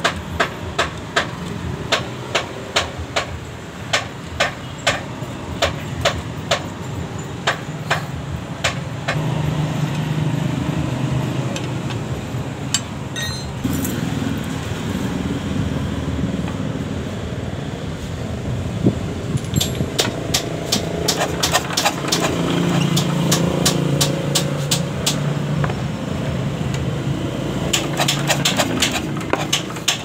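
A 186F air-cooled single-cylinder diesel being turned over while its injection pump's fuel delivery is tested: sharp clicks about once a second, a steady mechanical drone through the middle, and quicker clicks again near the end.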